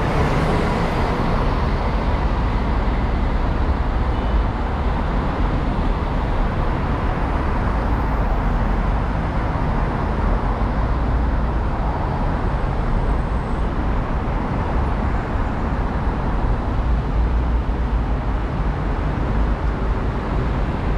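Car driving in city traffic: steady road and tyre noise over a deep rumble. A bus passing close alongside briefly adds noise at the start.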